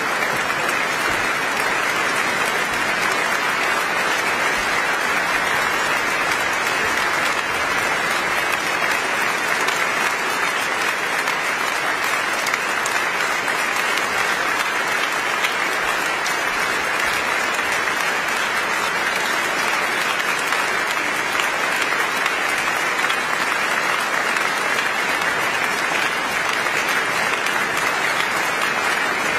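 A large audience applauding steadily, an even, unbroken sound of many hands clapping.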